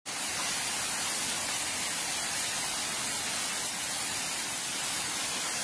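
Heavy rain falling, a dense, even hiss that holds steady throughout.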